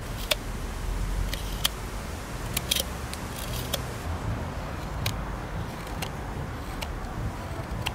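Carving knife slicing green spalted sycamore on the outside of a drinking cup: a run of sharp, irregular cuts, roughly one a second, over a steady low rumble.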